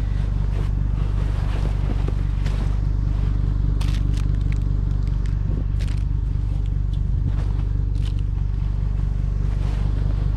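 A vehicle engine idling steadily, with scattered clicks, scrapes and rustles of metal patio chairs and their cushions being handled.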